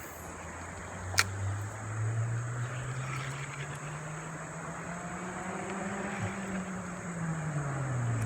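A motor vehicle's engine humming steadily, rising in pitch to a peak about six seconds in and falling back near the end, with a single sharp click about a second in and a steady high insect drone.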